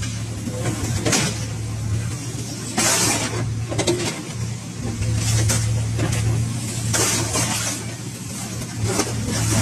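Excavator diesel engine running steadily under hydraulic load. Scrap car metal clanks and scrapes in the grapple as it grabs and drops pieces, about every one to two seconds.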